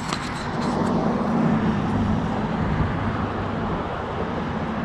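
Motor vehicle running: a steady low engine and road noise that swells about a second in and eases toward the end, with a few light clicks at the start.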